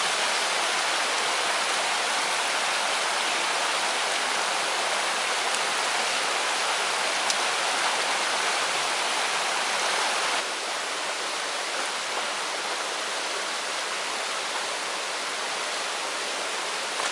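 Shallow rocky creek rushing over stones: a steady, even rush of water that drops a little in level about ten seconds in.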